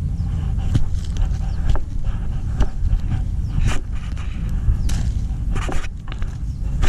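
Heavy low rumble of wind on the microphone, with irregular scraping and crunching steps.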